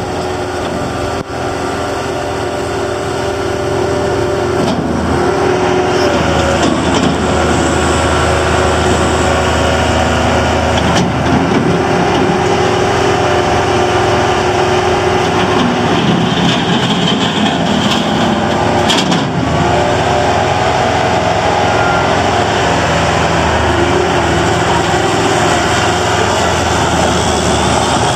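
Bobcat 853 skid steer loader's engine running steadily, its pitch shifting up and down several times as the machine is throttled and worked.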